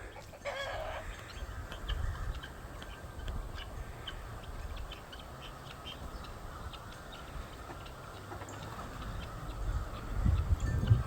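Chickens clucking: one brief wavering call about half a second in, then scattered short clucks throughout. A low rumbling noise rises near the end.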